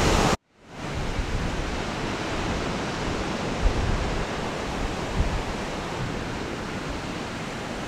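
Steady rush of surf and wind on a beach, with uneven low gusts buffeting the microphone.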